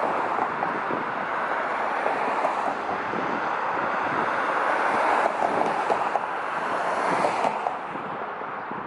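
Road traffic on a busy city street: steady tyre and engine noise from passing cars, easing off slightly near the end.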